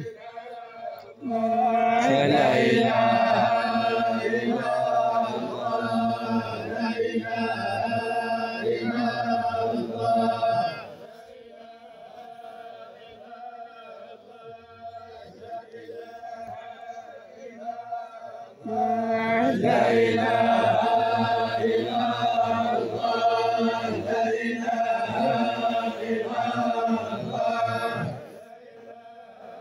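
A large group of men chanting in unison for the dead. The chant comes in two long loud phrases of about nine seconds each, with quieter chanting carrying on in the pause between them.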